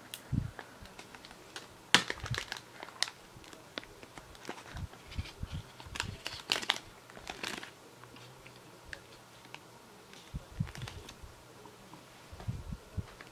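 Plastic packaging crinkling, with irregular clicks and taps as it is handled and opened; the sharpest click comes about two seconds in, with a busier burst of crackling midway.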